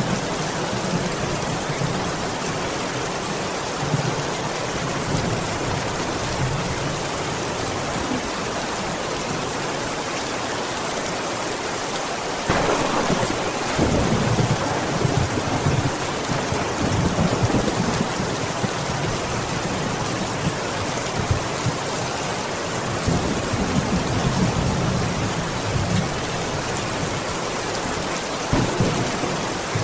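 Heavy rain falling steadily, with low rolls of thunder. The strongest roll begins sharply about halfway through, and more rumbling follows later.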